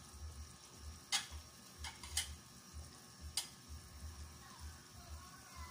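Metal ladle clinking against the side of a pot of simmering soup, four light clicks in the first three and a half seconds, over a low pulsing about twice a second.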